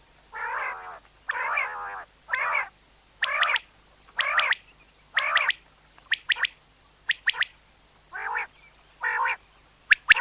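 Common quail calling: a run of lower, drawn-out notes about one a second, broken near the middle and again at the very end by short, sharp high notes in quick twos and threes.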